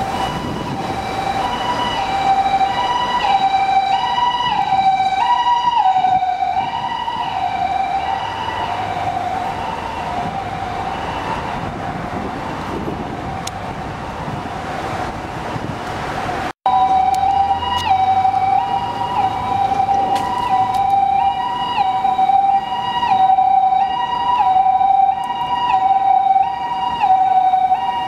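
Japanese-style two-tone ambulance siren (hi-lo "pee-po") on the first-generation Toyota HiMedic doctor car, alternating between two pitches a little more than once a second over road traffic. About six seconds in its pitch drops as the vehicle passes and the siren fades. After a brief break past the middle it returns louder and closer.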